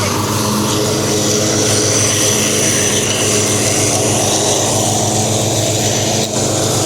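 Craftsman riding lawn mower's engine running steadily, a continuous drone with a faint high whine above it, briefly dipping about six seconds in.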